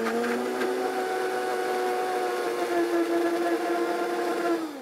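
Countertop blender running at full speed, puréeing watercress, leeks, cherry tomatoes, cheese, olive oil and garlic. It is a steady motor whine that is switched off near the end, falling in pitch as it spins down.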